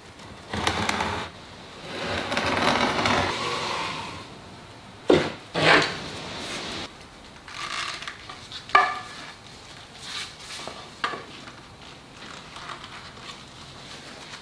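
A veneered MDF panel and timber pieces being slid and shifted on a wooden workbench: a scraping rub twice in the first few seconds, then a few sharp wooden knocks and lighter clicks as pieces are set down and handled.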